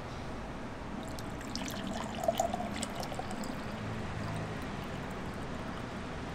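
Water poured from a large plastic bottle into a glass drinking glass, a steady trickling stream with a few light ticks about a second or two in.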